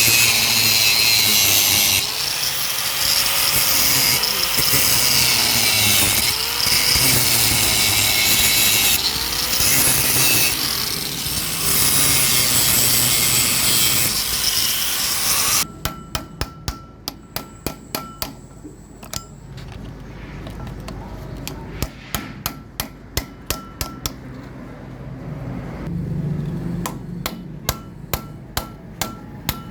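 A power grinder running hard on metal, its motor pitch wavering under load, cuts off suddenly about halfway through. Groups of sharp hammer blows on metal follow, each leaving a short ringing note.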